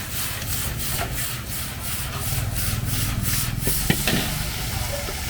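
Metal spatula scraping and tossing food in a wok, in quick regular strokes about three a second, then a sharp clank about four seconds in.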